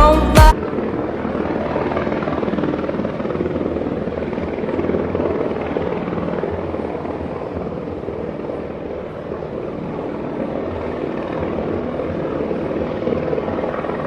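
Steady rushing noise of heavy rain, coming in as the music cuts off about half a second in.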